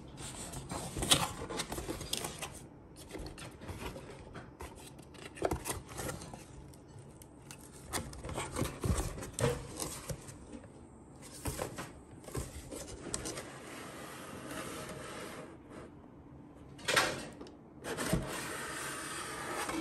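Cardboard wine-glass box being opened by hand: flaps and inserts rubbing and scraping against each other, with scattered clicks and knocks and a longer rustle near the end.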